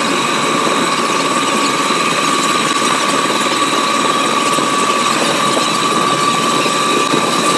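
Preserved Brooklyn Union Elevated gate car running along the track, heard from inside the car: a steady, loud rush of wheels on rail with a steady high-pitched whine.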